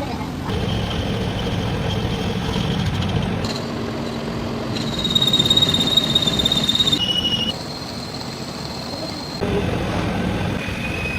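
Heavy workshop machinery running through several short edited clips that change abruptly, with a steady high-pitched whine from about 5 to 7 seconds in.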